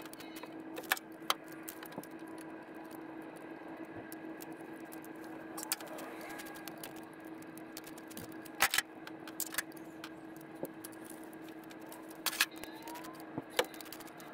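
Hand tools clinking against metal as a carburetor is tightened down on its intake: scattered sharp metallic clicks a second or several apart, over a faint steady hum.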